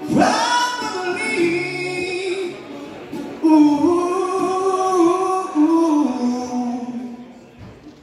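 Male voice singing two long phrases of held notes into a microphone over acoustic guitar. The second phrase steps downward and fades away near the end as the song closes.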